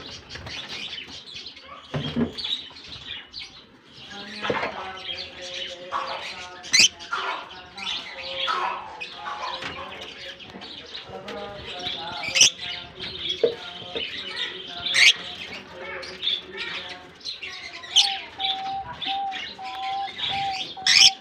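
A colony of lovebirds chattering continuously, with sharp, high shrieks standing out every few seconds.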